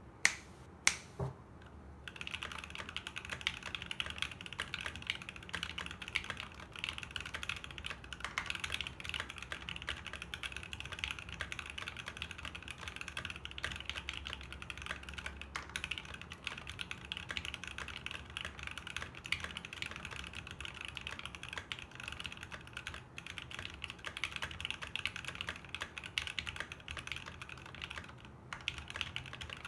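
Fuji 65 custom mechanical keyboard with a brass plate, lubed Seal linear switches and GeekArk BOW keycaps, typed on quickly and continuously. A couple of louder single clicks come first, and the steady typing starts about two seconds in.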